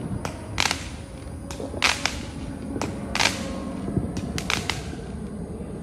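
Fireworks going off around the neighbourhood: about seven sharp bangs and cracks at irregular intervals, each with a short echoing tail.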